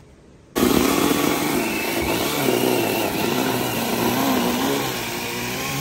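Cordless power saw starting abruptly about half a second in and running steadily as it cuts into the thick layered cardboard and duct tape of a cardboard boat hull, its motor pitch wavering under the load.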